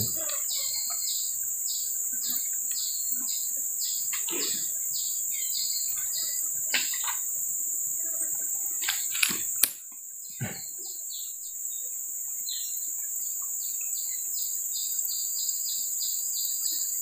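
Steady high-pitched drone of insects along a tropical riverbank, with a chirp repeating about three times a second. A few light clicks sound over it, and the drone briefly drops away about ten seconds in.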